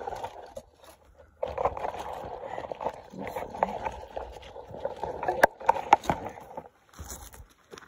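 Footsteps and scuffing on dry dirt close to the microphone, with a run of small clicks and two sharp knocks about five and six seconds in.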